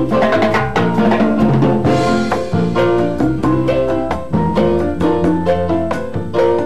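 Salsa music from a live band: congas and drum kit keep a steady, busy rhythm under a repeating keyboard figure.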